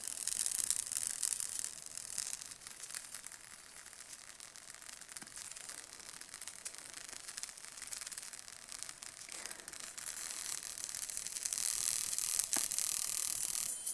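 Tiny earbud speaker driver from a Plantronics BackBeat Fit being overdriven until it blows, giving a thin, hissy crackle of rapid ticks; its voice coil has come loose and flaps. It is louder at first, dips in the middle and grows again from about ten seconds in.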